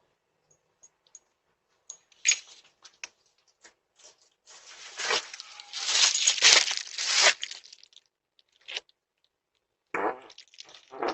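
A long sputtering fart picked up by a Ring video doorbell's microphone: a run of short rasping pulses lasting about three seconds, starting some four and a half seconds in, after a single sharp click. Scattered shorter pulses come again near the end.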